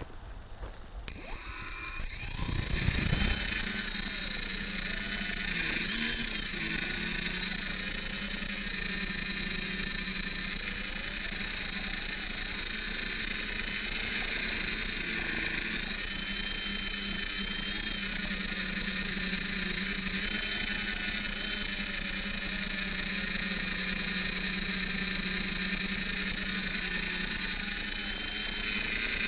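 DJI F550 hexacopter's brushless motors and propellers spin up about a second in. They then run as a steady high-pitched whine with a constant piercing tone through the flight, heard up close from a camera on the frame. There is a brief low rumble about two seconds in, as it lifts off.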